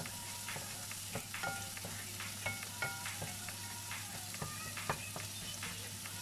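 Metal spatula stirring minced beef in a hot pan, scraping and clinking against the metal with short ringing clinks several times a second, over a steady frying sizzle.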